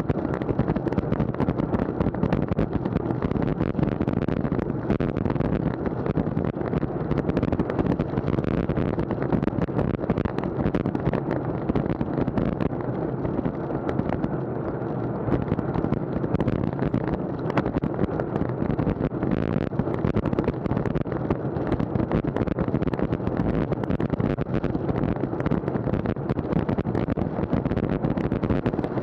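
Steady wind buffeting the microphone of an action camera on a moving road bike, with rolling road noise underneath.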